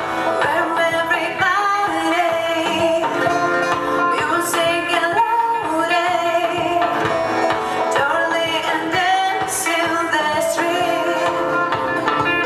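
Live band performing a song: a voice singing over guitar accompaniment.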